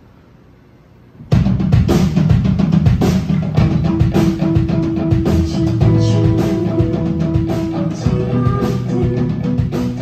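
A live band comes in all at once about a second in: drum kit, electric guitar and keyboard playing a loud, driving song, with the drums strongest.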